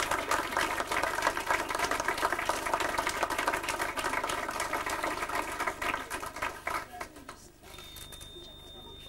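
A small group clapping, a dense patter of hand claps that dies away about seven seconds in.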